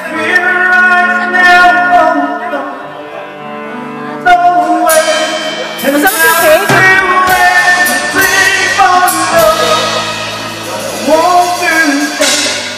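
Live band playing a song, with a man singing lead and women singing backing vocals over drums. The drums and cymbals come in harder about four seconds in.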